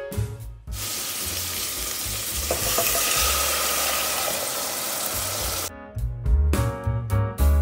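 Beetroot and spices frying in hot oil in a pressure cooker, an even sizzle lasting about five seconds. Background music plays briefly at the start and again for the last couple of seconds.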